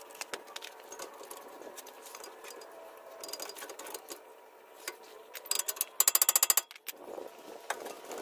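Metal clicks and light knocks from hand work on a front wheel hub and steering knuckle, with a fast, even run of about a dozen sharp clicks about six seconds in.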